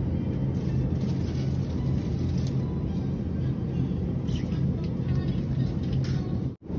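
Steady low rumble and hum of supermarket background noise, with a few faint clicks.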